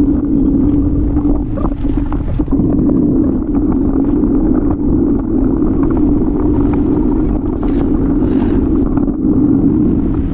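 Steady, loud rumble of wind and road noise on a camera mounted on a moving bicycle.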